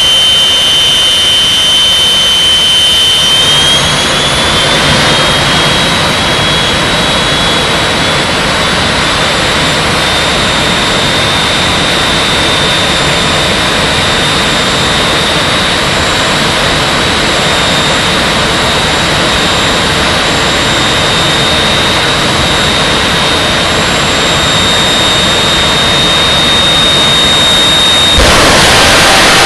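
Jet car's turbine engine running at the starting line: loud, with a steady high whine that rises in pitch about three seconds in and then holds. Near the end it suddenly gets louder as the afterburner lights and the car launches.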